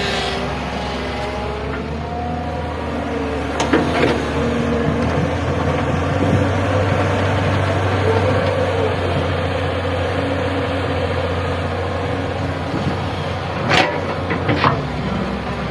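Excavator's diesel engine running steadily under load, with sharp clanks of metal on metal about four seconds in and twice near the end.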